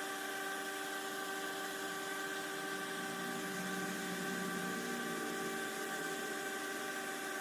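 Vapor polishing machine running: a steady small-motor hum made of several held tones over an even hiss of blowing air and vapor.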